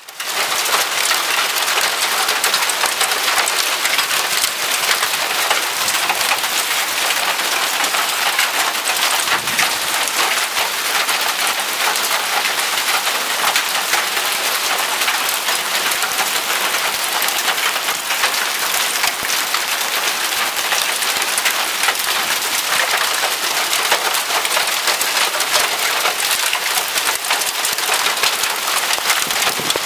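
Hailstorm: hail and heavy rain pelting pavement, grass and nearby surfaces in a dense, steady clatter of countless small impacts.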